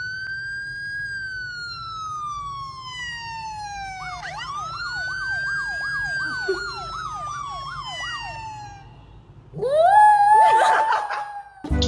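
Police-style siren sound played from a phone: a wail that rises and slowly falls, then a second wail with a fast warbling yelp over it. About ten seconds in, a small white dog howls along, a louder held note.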